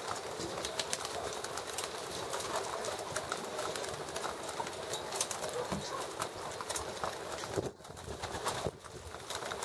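A flock of racing pigeons feeding at a grain trough: a dense, constant patter of beaks tapping and pecking, with feet scuffling and some low cooing.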